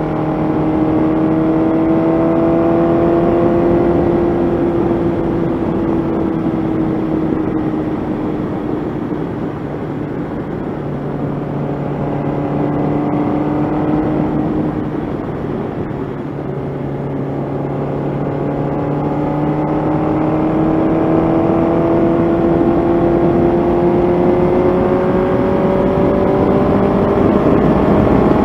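Honda CB700SC Nighthawk's inline-four engine running under way on the road, with wind rushing over the microphone. The engine pitch climbs slowly, eases off about halfway through, then builds steadily again toward the end.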